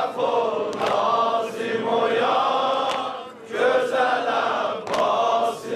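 Chanted Shia lament (mersiye) sung in long, drawn-out phrases, with a short break about three seconds in.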